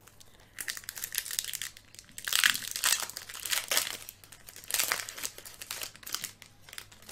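Foil wrapper of a Pokémon TCG Crown Zenith booster pack crinkling as it is torn open and the cards pulled out. It comes in irregular crackling bursts, loudest about two and a half seconds in and again near five seconds.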